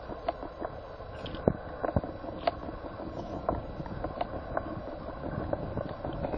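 Hands handling charger cables and clip leads on a pair of lead-acid batteries: a steady rustle with irregular light clicks and taps.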